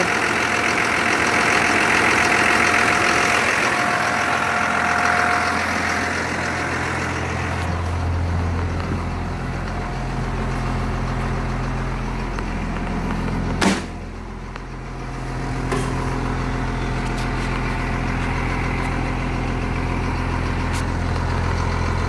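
1996 Blue Bird school bus engine idling steadily. For the first few seconds it is heard up close at the engine compartment, with a hiss and a steady high whine. It then settles into a low, even hum, with one sharp knock about fourteen seconds in.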